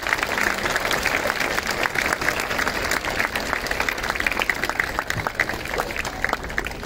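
A large crowd clapping: dense, continuous applause that eases off slightly near the end.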